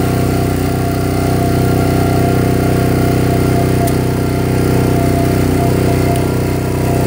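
Small gasoline engine running steadily at constant speed, with a steady high whine over it.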